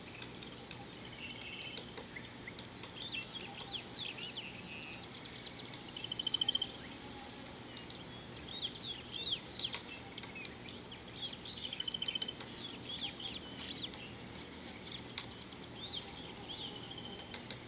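Small birds chirping and calling, many short high notes throughout, with a quick trill about six seconds in and another about twelve seconds in.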